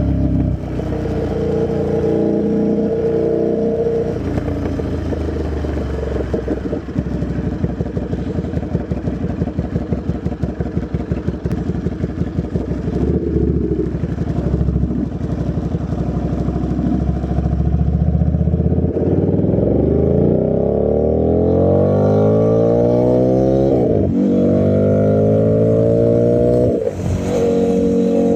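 A 2009 Buell 1125R's V-twin is running through a very loud custom exhaust with no dB killer. It idles with an uneven, pulsing beat, an idle that needs a tune after the exhaust change. Then it accelerates hard with rising pitch, shifts gear about three-quarters of the way through, pulls up again, and backs off near the end.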